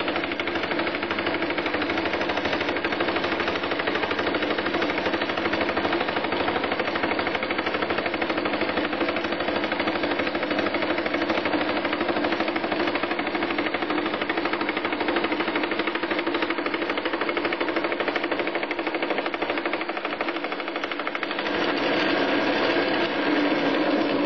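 Single-point fly cutter spinning at 760 RPM in a lathe collet, taking a rapid, chattering interrupted cut through an aluminium gear blank fed upward from below on a vertical mill slide. The cut grows louder about three seconds before the end.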